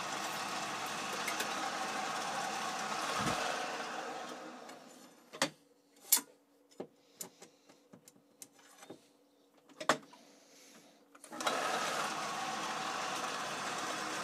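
Atlas 10-inch turret lathe running, then winding down about four seconds in. In the quiet that follows come a dozen sharp metallic clicks and clunks as the collet is released, the bar stock is pushed out against the turret stop and the collet is locked again. The lathe starts up abruptly about eleven and a half seconds in and runs steadily.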